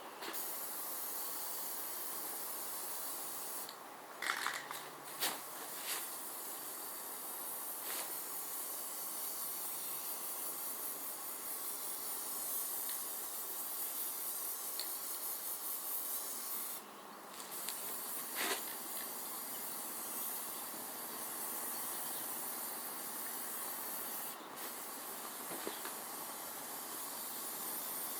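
Paint being sprayed: a steady hiss of spray that stops briefly a few times as the trigger is let go, with a few light knocks in between.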